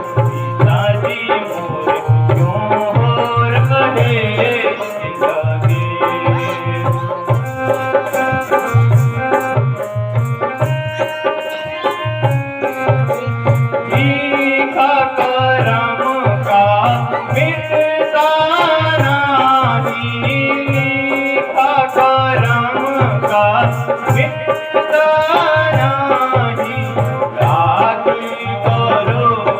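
Music: a hand drum beats a steady, repeating rhythm under a melody that bends in pitch.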